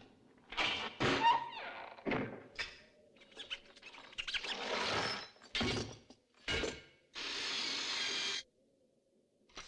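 A quick series of separate workshop handling sounds: knocks and clatters of hard parts and a few sharp impacts. Near the end a steady hiss runs for a little over a second.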